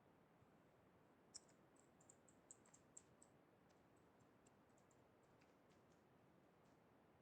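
Near silence with a scattering of faint, sharp clicks from working a computer, most of them bunched between about one and three seconds in.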